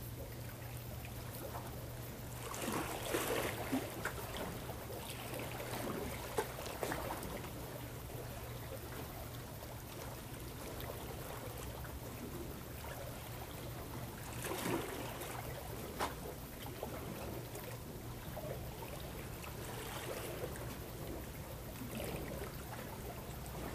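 Seawater lapping and sloshing irregularly against the shore rocks, over a steady low hum, with a few sharp clicks.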